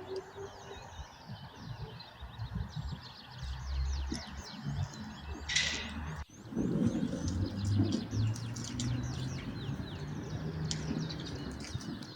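Small songbirds chirping and twittering throughout, with low rumbling and handling noises underneath and a brief hiss about halfway through.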